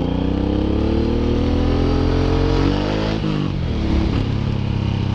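Suzuki Boulevard M109R's 1783 cc V-twin accelerating under the rider, its pitch climbing for about three seconds, then dropping sharply and settling into a steadier, lower run.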